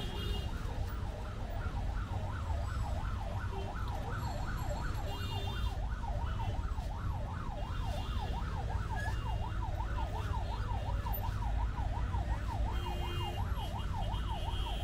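An electronic siren wailing in a fast up-and-down sweep, about three sweeps a second, over the steady rumble of street traffic.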